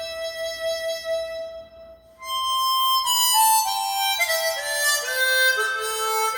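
Chromatic harmonica playing unaccompanied: one long held note, a brief break, then a phrase that steps downward note by note.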